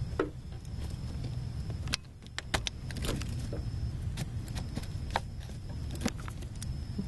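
Scattered sharp plastic clicks and knocks from a hand working the electrical connector off a 2005 Ford Taurus brake master cylinder's plastic fluid reservoir, over a steady low rumble.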